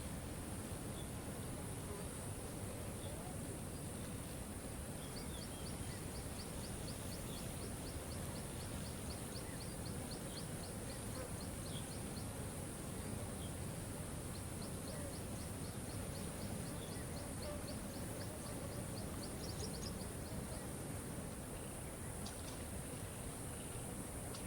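Steady rush of a waterfall. Over it, a fast run of high ticks, about six a second, comes twice for several seconds each, with a few scattered small chirps.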